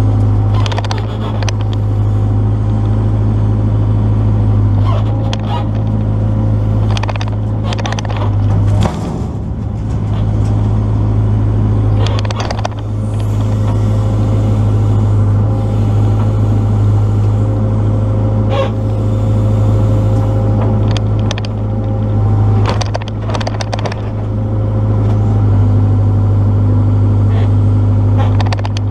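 Excavator engine running steadily while the machine works at a tree stump, with repeated sharp knocks, clanks and cracks from the bucket and the stump.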